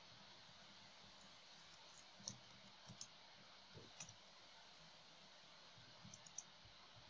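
Near silence with a few faint, scattered clicks of a computer mouse, ending in a quick cluster near the end.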